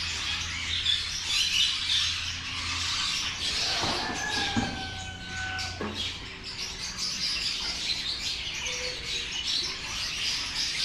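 Many aviary birds chirping and calling at once in a dense, continuous chatter, with a held whistle about four seconds in that lasts roughly two seconds.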